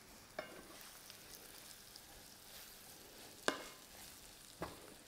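Flour-dusted chicken pieces frying with a faint sizzle in a non-stick pan of olive oil and onion over high heat, stirred with a wooden spatula that knocks against the pan three times, loudest about three and a half seconds in.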